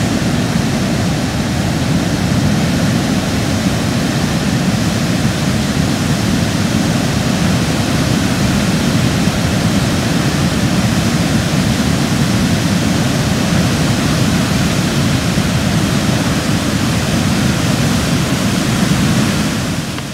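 Steady, loud rush of churning whitewater, fading out near the end.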